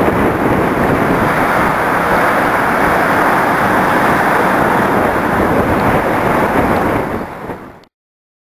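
Wind buffeting the microphone over the rush of a sailing catamaran's wake through rough seas, a steady loud noise that fades out about seven seconds in, leaving silence.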